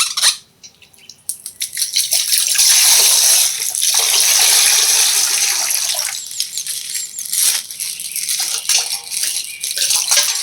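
Water pouring and splashing out of a burst plastic bag, then a patter of smaller crackles and drips as the plastic is handled.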